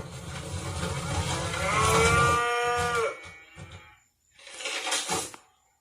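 A cow moo from a 'moo can' toy: one long moo that bends up and then falls away, ending about three seconds in. A short noisy clatter follows about five seconds in.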